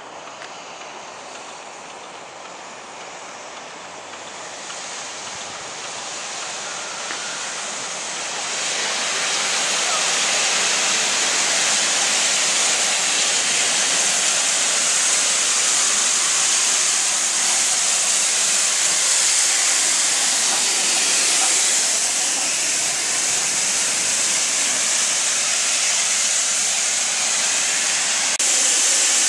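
Steam locomotive Rood Ashton Hall, a GWR Hall-class 4-6-0, drawing into the station and passing close by. Its hiss of steam grows louder over the first several seconds and then holds as a loud, high, steady hiss while the engine and coaches go past.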